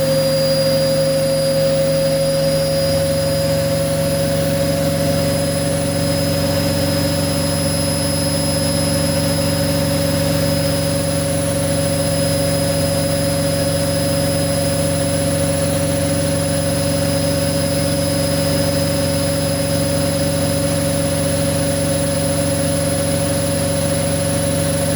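Hoover washing machine running at high speed, a loud steady whine whose main pitch rises slightly over the first few seconds, with a low hum underneath that shifts about three seconds in. The machine is shown as running out of control.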